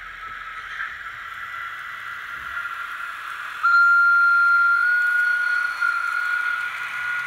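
DCC sound decoders in a pair of Fleischmann N-scale SBB Re 420 and Re 421 electric locomotives, playing their running sound through small speakers as the coupled pair passes. About three and a half seconds in, a loud, steady high tone starts abruptly, steps slightly higher in pitch about a second later and holds.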